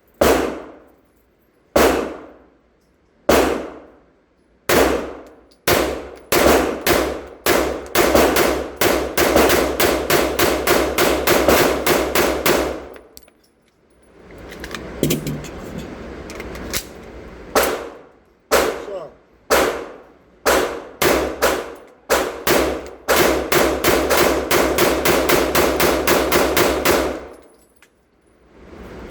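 Girsan Witness 2311 pistol firing: single shots about a second and a half apart, then a rapid string of shots, a short pause with a few scattered shots, and another rapid string near the end. Each shot has a ringing tail.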